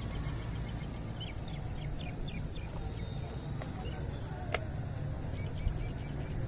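Wind buffeting the microphone with a steady low rumble. Faint bird chirps come and go over it, and there is a single sharp click about four and a half seconds in.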